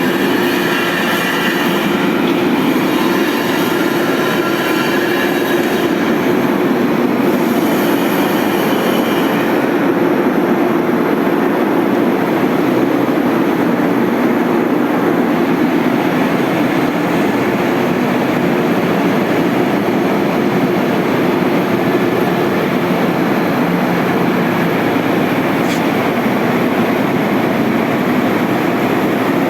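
Half-horsepower electric vacuum pump running steadily with a constant hum. A high hiss rides over it for about the first ten seconds, then drops away.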